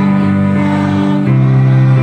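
Slow music with long held chords that change once, a little past a second in.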